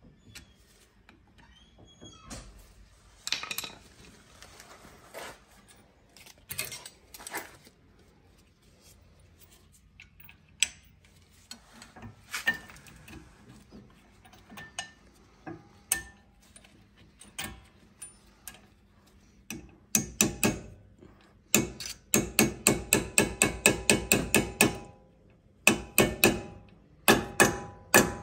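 Scattered metal clicks and clinks of brake parts being handled, then, in the last third, a rapid run of hammer taps, several a second with short pauses, driving a pad retaining pin into a Brembo four-piston front brake caliper.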